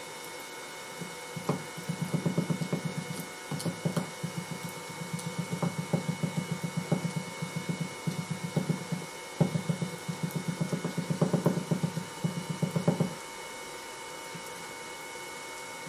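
Small hammer rapidly tapping a metal piece set in a green-sand mould, rapping it loose so it can be drawn out of the sand. Dull, muffled taps, several a second, in runs with short pauses, stopping suddenly near the end.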